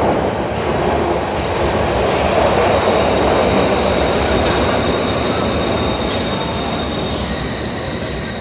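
Glasgow Subway train running into the platform with a loud rumble, wheels squealing and a high whine that falls in pitch as it slows; the noise eases off near the end.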